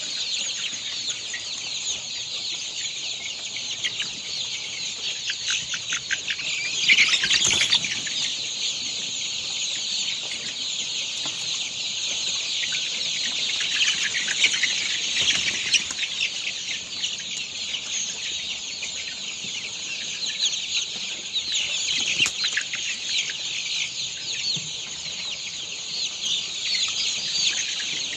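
A large flock of commercially farmed chickens calling all at once: a dense, continuous chatter of many high, short calls, with a louder flurry about seven seconds in.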